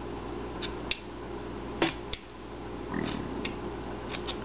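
Small detail carving knife cutting into a wood carving: a few short clicks and soft scratches of the blade in the wood, over a steady low hum.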